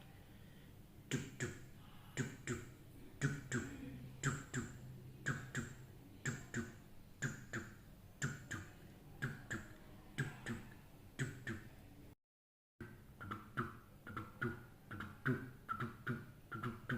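Recorded heart sounds: a steady lub-dub rhythm of paired beats about once a second. After a short break the beats come closer together.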